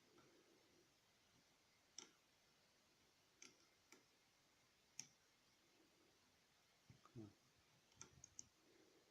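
Faint, sharp metallic clicks at irregular intervals, about nine in all, several close together near the end: a dimple pick working the pins of a Yale 6-pin dimple Euro cylinder, the clicks the picker listens for as pins set.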